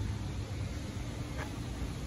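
Steady low rumble and hiss of outdoor background noise, with a faint click about one and a half seconds in.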